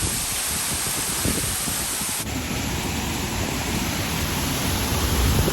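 Steady rush of an artificial waterfall: water pouring down and splashing.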